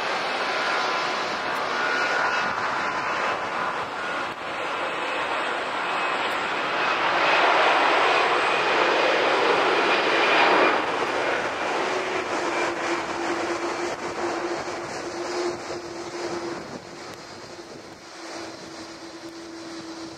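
Airbus A310-304's two GE CF6-80C2A2 turbofan engines at taxi power as the airliner taxis past: a steady jet rush and whine that swells to its loudest about halfway through, then eases off, with a steady low hum in the second half.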